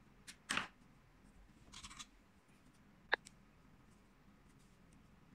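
Scissors snipping the yarn to fasten off a finished crochet piece: a couple of short cuts and rustles in the first two seconds, then a single sharp click about three seconds in.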